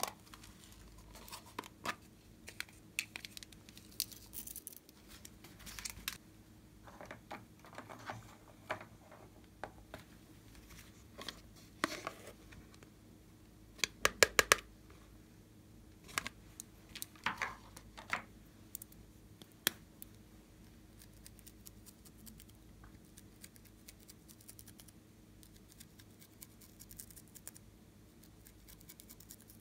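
Scattered clicks and taps of plastic containers being handled, with a quick run of sharp clicks about halfway through as a snap-shut plastic case is worked open. A faint steady hum lies under it.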